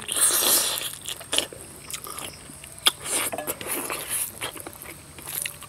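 Close-miked eating by hand: a loud wet slurp as fingers are sucked clean at the start, then scattered lip smacks and clicks of chewing pork.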